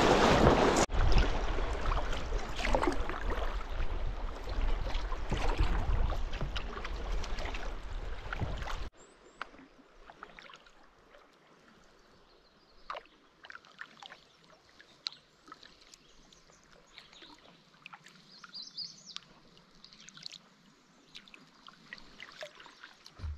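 Fast river water rushing and splashing around a kayak's bow as it runs a stretch of rapids, loud and steady for about nine seconds. It then cuts off abruptly to calm water, leaving only faint scattered ticks and drips and a brief bird chirp.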